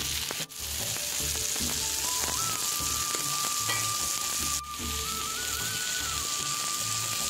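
Rava-coated pomfret pieces sizzling steadily in shallow oil on a flat iron pan, with a fry hiss that drops out briefly twice.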